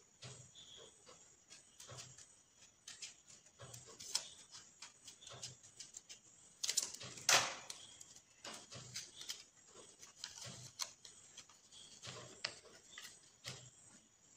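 Colour paper rustling and crinkling as it is folded and pressed by hand, in many short scratchy touches, with a longer, louder crinkle about seven seconds in.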